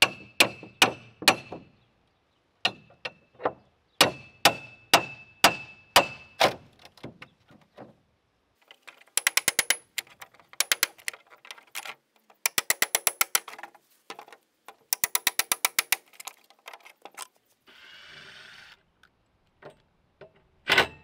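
Hand tools at work on a fence panel: a run of sharp metal strikes with a ringing note, about two a second, for the first six seconds, then several one-second bursts of rapid clicking.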